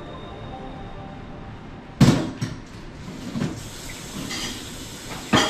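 Metal box grater knocking against a plate and counter as it is tapped clear and set down after grating boiled egg. There is a sharp loud knock about two seconds in, a few lighter knocks after it, and another loud knock near the end.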